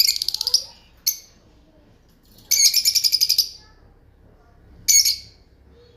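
Budgerigars chirping: four bursts of rapid, high trilled chirps, the longest lasting about a second in the middle.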